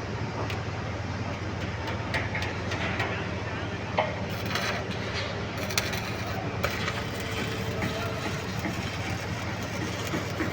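Stick welding: an arc crackling and sputtering, with scattered sharp clicks, over a steady low hum.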